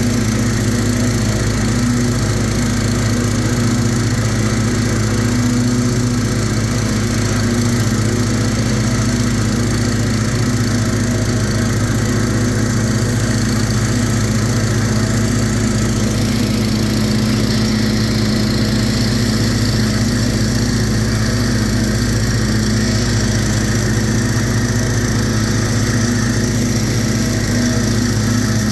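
Kohler 18 hp engine of a Hustler FasTrak zero-turn mower running steadily under load while mowing grass, with a slight change in the higher hiss about halfway through.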